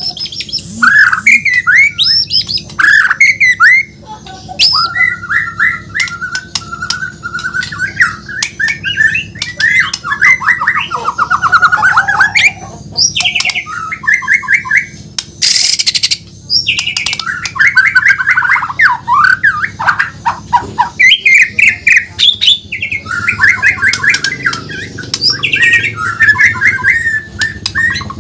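White-rumped shama (Bornean murai batu) singing a long, nearly unbroken song of sweeping whistles, rapid trills and harsh notes, with a short pause a few seconds in.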